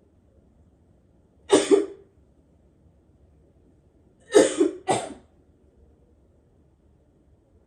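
A person coughing in short fits: a double cough about a second and a half in, then three quick coughs around four and a half seconds in. The coughs are put on, faked for a coughing-up-blood prank.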